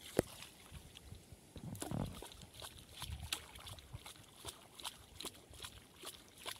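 Fishing rod and spinning reel being handled as the rod tip is twitched to jiggle the float rig: irregular light clicks, a sharper knock just after the start and a short low rustle about two seconds in.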